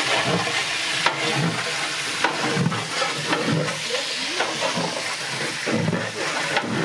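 Chopped okra sizzling as it fries in a large aluminium pot, with a steady hiss throughout. A long metal spatula stirs it, scraping and clinking against the pot at irregular moments.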